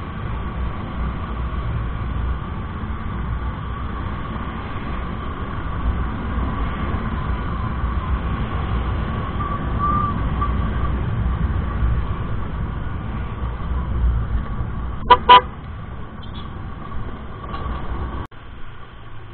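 Steady wind and road rumble from a camera riding on a moving Honda Click 125i scooter, with two quick horn toots about fifteen seconds in. Near the end the rumble drops away suddenly.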